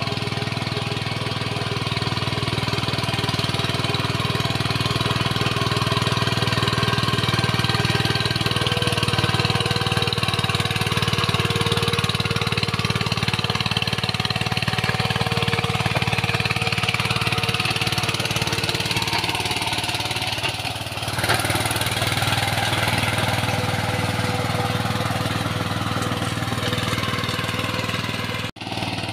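VST Shakti power tiller's single-cylinder diesel engine running steadily under load while tilling wet paddy mud.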